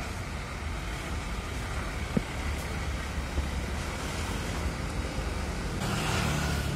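Large intercity coach bus pulling out and turning, its engine giving a steady low rumble under road and traffic noise. A single sharp click comes about two seconds in, and a louder rushing hiss starts near the end.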